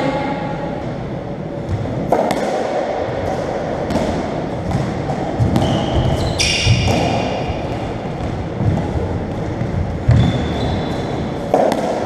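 Racketball rally in an echoing squash court: the ball cracks off rackets and walls every second or two, with shoes squeaking in short high squeals and thudding on the wooden floor.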